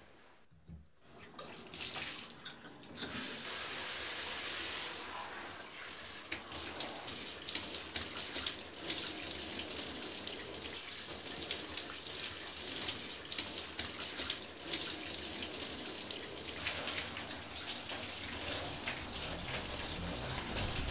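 Shower running: water spraying from a wall-mounted shower head onto a person and the tiled stall. It comes on about two seconds in, then runs steadily.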